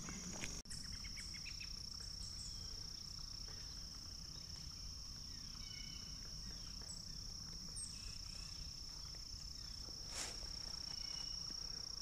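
Steady, high-pitched, unbroken drone of insects, with a few faint bird chirps.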